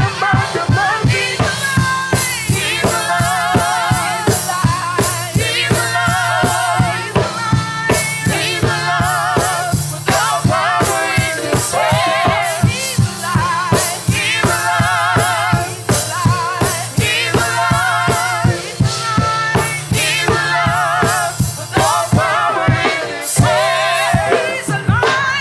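Live gospel praise music: singers with a choir over drum kit, bass and keyboard, with a steady beat and vibrato in the voices.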